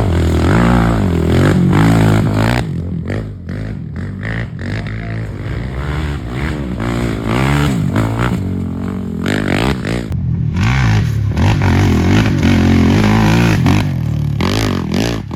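Off-road racing engines revving up and down, their pitch rising and falling over and over, with an abrupt change in the sound about ten seconds in.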